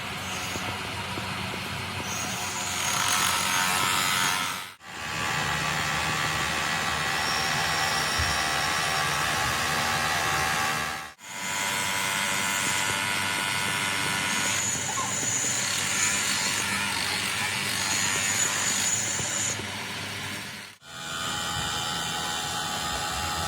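Workshop machinery running steadily, with a thin high whine that starts and stops several times. The sound drops out abruptly three times.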